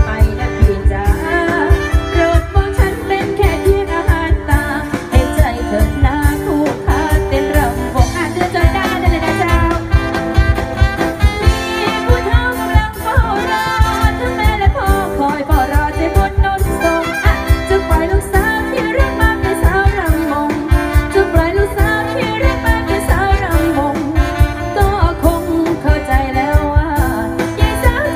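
A live band with a singer, played loud through a PA over a steady fast drum beat: Thai ramwong circle-dance music.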